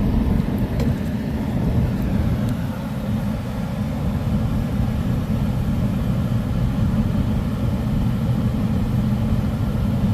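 Air-conditioning unit running steadily just after restarting, a continuous low rumble; the restart shows the float switch has reset.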